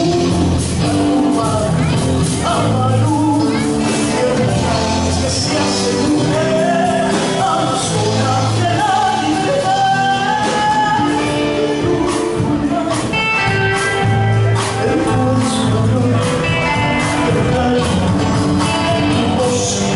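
Argentine folk song: a singer with instrumental accompaniment.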